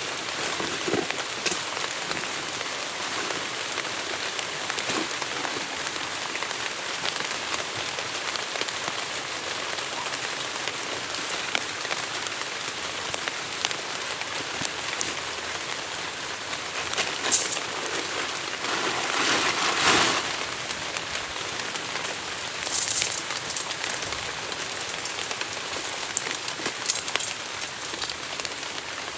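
Heavy rain falling steadily, with scattered sharper drop ticks. About twenty seconds in it briefly swells louder for a second or two.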